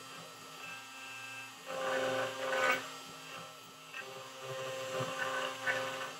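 CNC router carving a red oak plane body with a ball-nose bit: the spindle runs with a steady hum while the machine's pitched whine comes and goes in short passes, over the scrape of the bit cutting the wood.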